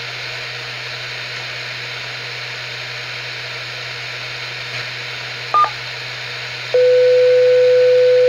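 2-metre amateur radio receiver hissing steadily from the open channel, with a brief double blip about five and a half seconds in. Near the end a loud steady tone begins: the first tone of the Pikes Peak ARES emergency page, sent as a weekly test.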